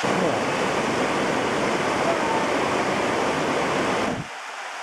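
Rushing whitewater of river rapids, a steady dense noise that drops suddenly to a quieter level about four seconds in.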